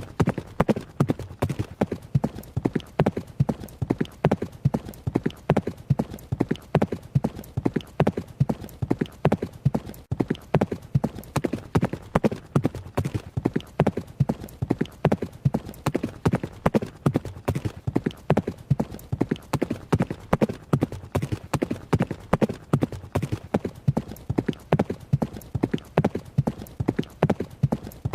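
Horse hooves striking the ground in a fast, steady, repeating rhythm of many short hits each second, a horse running.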